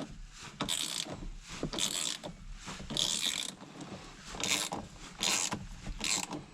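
Flex-head ratchet wrench clicking in short runs, about one back-stroke a second, as the steering wheel bolt is run down.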